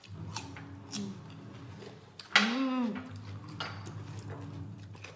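A few light clicks and clinks of plates and tableware. About halfway through comes a loud, short vocal exclamation from a woman that rises then falls in pitch.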